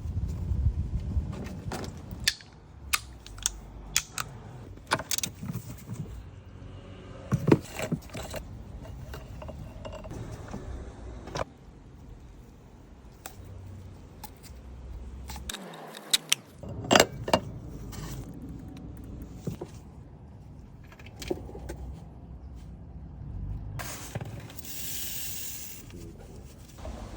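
Metal hand tools and parts clinking and clanking during work on a car's oil change: a long irregular series of sharp clicks and clanks, some in quick clusters, over a low steady rumble.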